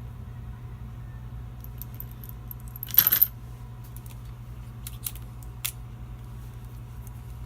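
Small metal parts clinking together in a brief rattle about three seconds in, with a few lighter clicks before and after.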